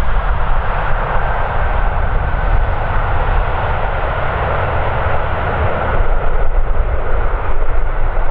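Airliner's engines running loud and steady, a broad rushing noise with a deep rumble underneath.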